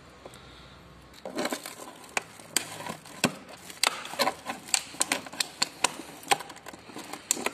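A stuck rubber hose being twisted and worked off the outlet of a Fiat Linea's power-steering fluid reservoir, with the plastic wrapped around the joint crinkling. From about a second in, a run of sharp, irregular creaks and crackles; the hose is stuck very tight.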